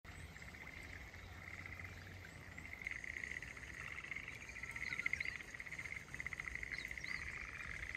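A chorus of frogs trilling, rapid pulsed calls overlapping without a break, with a few short high chirps in the second half.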